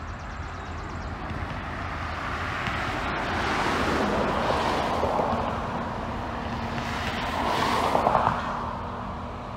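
Vehicle noise swelling and fading twice, loudest about four seconds in and again just before eight seconds, over a steady low rumble.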